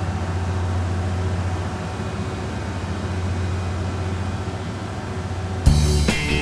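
Steady low drone of a running vehicle. Music starts near the end.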